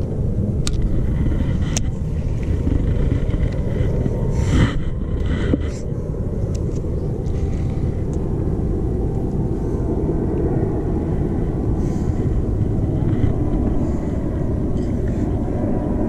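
Steady low rumble of wind buffeting the camera's microphone, with a few soft knocks and clicks from hands handling a baitcasting reel about four to six seconds in.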